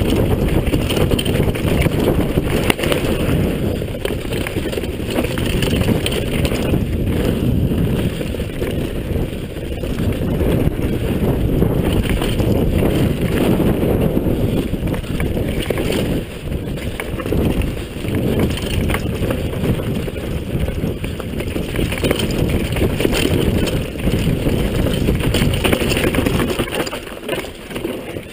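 Rumble and rattle of a downhill mountain bike running fast over a dry dirt trail, with wind buffeting the microphone and frequent knocks as the bike bounces; it eases a little near the end.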